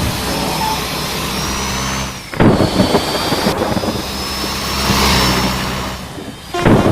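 Large tour bus engine running, with a thin high whine. Sudden loud rushes of noise come about two seconds in and again near the end.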